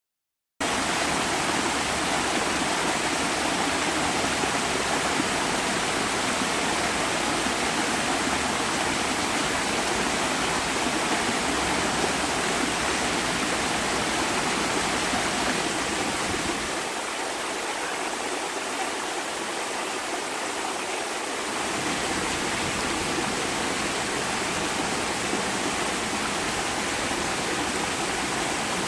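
Waterfall: a steady rush of falling water that starts abruptly about half a second in, with a slight thinning of the low rumble for a few seconds past the middle.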